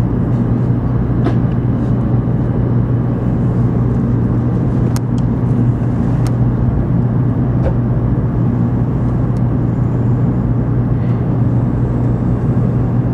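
Steady low hum inside a stationary N700-series Shinkansen passenger car, with a constant deep drone and a few faint clicks.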